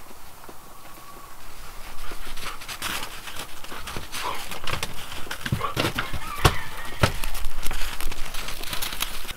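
Dogs panting and moving about, with a run of clicks and knocks that gets busier from about two seconds in; the two sharpest knocks come about half a second apart past the middle.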